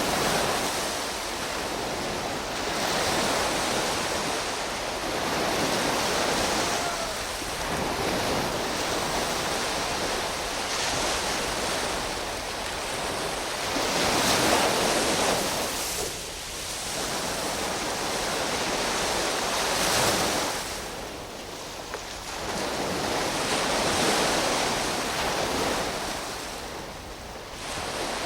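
Sea surf: a continuous rush of waves that swells and falls back every few seconds, loudest in two surges about halfway through.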